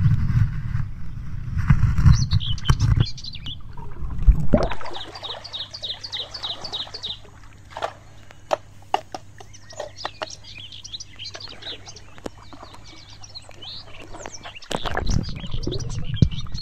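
Muffled underwater churning and knocking as a hand digs gravel from a riverbed, loud for the first few seconds and again near the end. In between, birds chirp, including a quick run of about eight high notes, among scattered sharp clicks.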